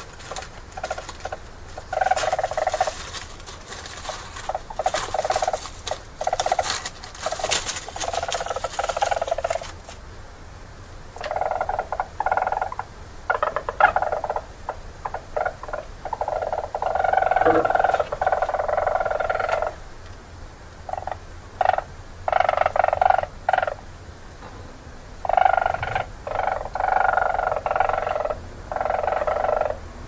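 Weasels in a mating attempt, making repeated bursts of rapid trilling. Each burst lasts from under a second to about three seconds, with short gaps between them. In the first third, shrill, harsh calls cut in among the trills.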